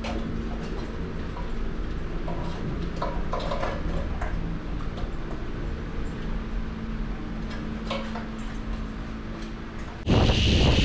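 Scattered light metal clinks as bolts are fitted by hand on a rusted steel mounting bracket, over a steady low hum. About ten seconds in, loud wind noise on the microphone takes over.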